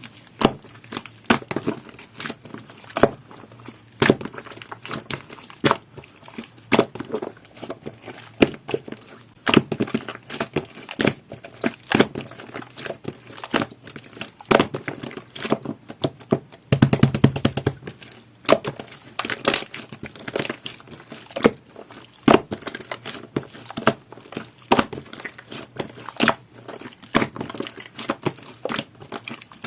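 Jelly-textured slime being pressed, folded and poked by hand. It gives irregular sharp clicks, pops and crackles, with a longer, denser squish a little past halfway.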